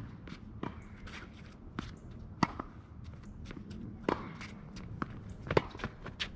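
Tennis rally on a hard court: sharp pops of racket strings striking the ball and the ball bouncing, a hit every second or so, the loudest near the start, halfway through and near the end, with tennis shoes scuffing and shuffling on the court between shots.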